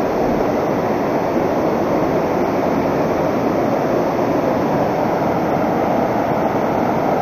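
A fast taiga river rushing over a stony riffle: a steady, even rush of water.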